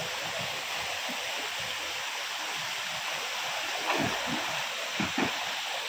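A small rocky stream running in a steady rush of water, with a few splashes in the water about four and five seconds in.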